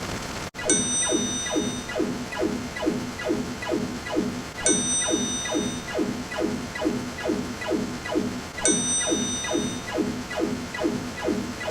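Looping synthesized sound effect: quick falling electronic blips, about four a second, with a high chime-like tone that starts again every four seconds. There is a brief cut-out about half a second in, where one clip gives way to the next.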